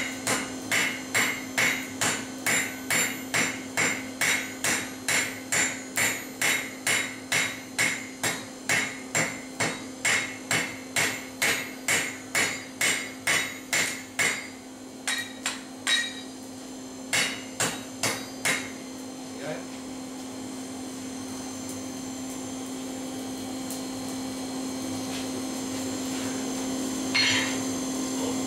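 Hand hammer forging red-hot steel on an anvil, about two ringing blows a second for roughly fourteen seconds, then a few slower, scattered blows before the hammering stops a little past halfway, leaving a steady hum.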